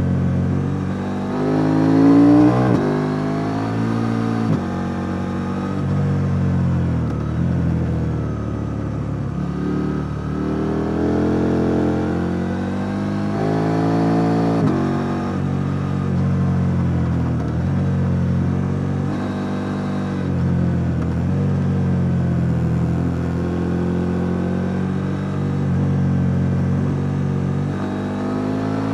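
KTM 890 Duke R's parallel-twin engine heard on board, revving up and dropping back again and again as the bike accelerates, shifts gear and rolls off through a run of bends. The loudest pull comes about two seconds in.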